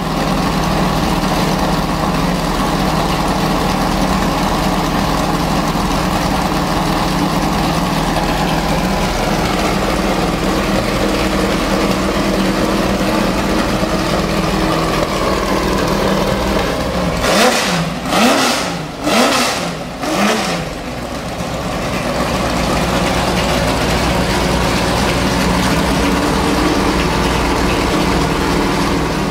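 Ford GT40 Mk II's V8 idling steadily through its exhaust, then blipped in a few quick revs, each rising and falling, about two-thirds of the way through, before settling back to idle.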